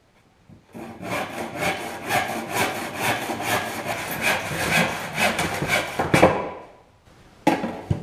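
A handsaw cuts through a hickory board in rapid back-and-forth strokes, about three a second. The sawing starts about a second in and stops about six seconds in, as the cut is finished.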